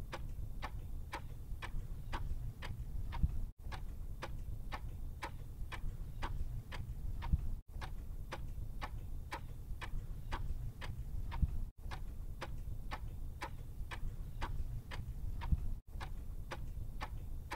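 Clock-ticking sound effect: even ticks, about two and a half a second, over a low rumble. The loop cuts out briefly every four seconds or so.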